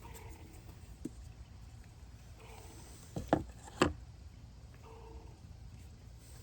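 Light knocks as pieces of a wooden panel carrier are handled and set down: a faint tap about a second in, then two sharper knocks about half a second apart midway through, the second the loudest.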